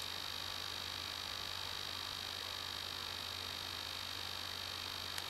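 13-inch MacBook Pro giving off a steady high-pitched whine over a low hum, with no distinct ticks.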